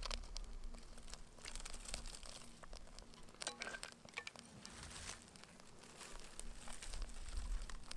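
Hands crumpling and rustling a bundle of dry lichen and grass tinder, with a short scrape about three and a half seconds in as sparks are struck into it.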